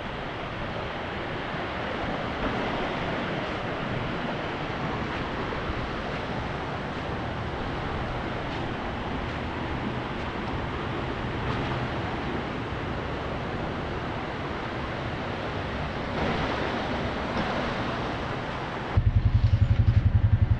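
A steady rushing noise, then near the end a small quad (ATV) engine suddenly comes in close and loud, running with a rapid, even low putter.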